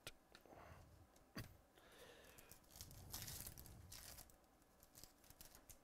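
Faint tearing and crinkling of a Topps Stadium Club baseball card pack wrapper being ripped open, loudest about three seconds in.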